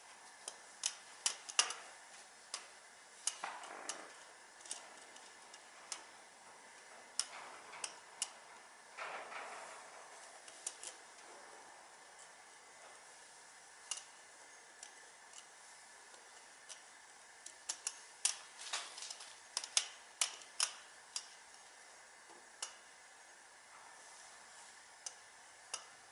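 Irregular sharp metallic clicks and clinks of hand tools and small metal parts being handled during work on an engine's valve cover, with a couple of short scraping sounds, about four seconds in and again about nine seconds in.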